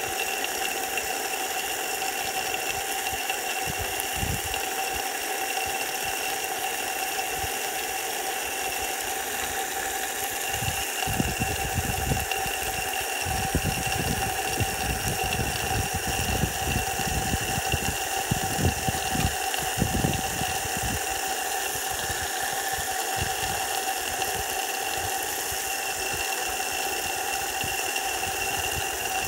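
A motor running steadily with a constant whine, and irregular low rumbling through the middle stretch.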